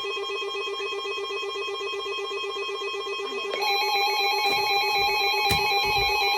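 Emergency alert attention tone: a stack of electronic tones trilling rapidly like a telephone bell. More tones join and it gets louder about three and a half seconds in.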